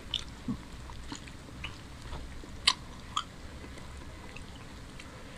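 Close-miked eating sounds of rice and chicken curry eaten by hand: scattered wet clicks and smacks of chewing and fingers working the food. The sharpest click comes about two and a half seconds in, with another just after.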